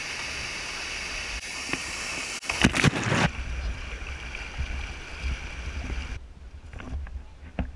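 Rushing water: a waterfall pouring into a rock pool, then a shallow rocky stream being waded through. There is a loud burst of water noise about three seconds in.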